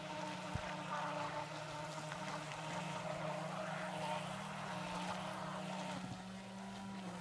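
Motors of two small radio-controlled speedboats running at speed across the water, a steady motor hum. The pitch rises slightly about four seconds in, and a second, lower tone joins about six seconds in.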